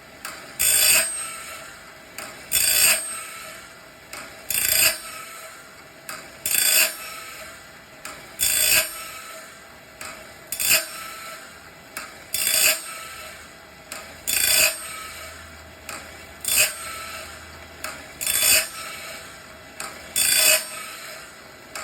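Woodland Mills RS30 band-sawmill blade sharpener running, its grinding wheel coming down into the gullet and rasping briefly against each tooth in turn, about once every two seconds. A lower steady running sound carries on between the grinds.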